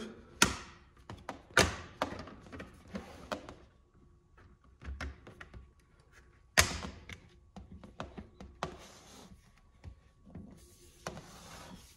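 Hard plastic clicks and taps as a Shoei CWR-1 Transitions visor's pins are pushed into the helmet's side mounting grooves and the shield is snapped into place, with lighter tapping and handling between the clicks. A few sharp clicks stand out, the loudest about six and a half seconds in.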